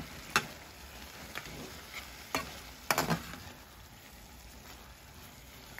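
A spatula scraping and knocking against a metal pan as onions, tomatoes and goat meat are stirred, over a low sizzle of frying. The strokes come in a cluster during the first three seconds or so; after that mostly the sizzle remains.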